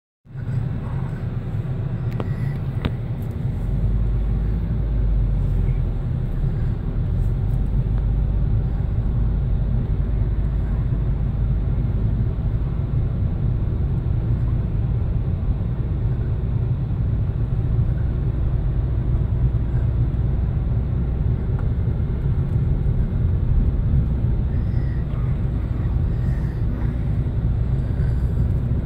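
Car cabin noise while driving slowly: a steady low engine and tyre rumble, getting heavier about three to four seconds in.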